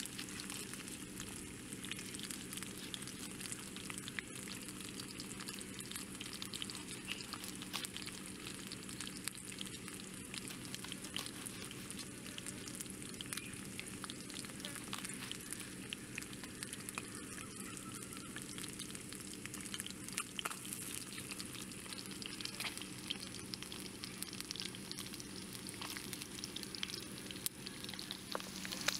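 Small fish frying in hot oil in an iron wok: a steady sizzle dotted with many small pops and crackles.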